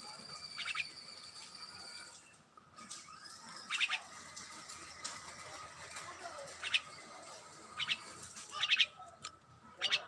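Young myna giving short, harsh, raspy calls, about six spaced through the stretch, some as quick double or triple pulses. A steady thin high tone runs underneath until about two seconds in.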